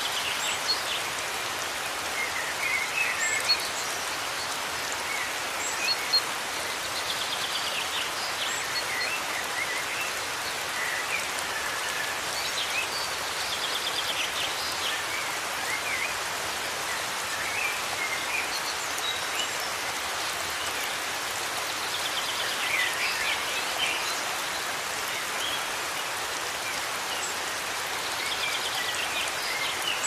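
Nature ambience: a steady hiss of rain, with birds chirping and giving short, quick trills every few seconds.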